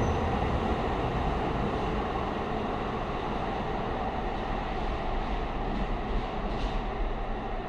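A Muni Metro light-rail train running in the underground station, a steady rumble that slowly fades.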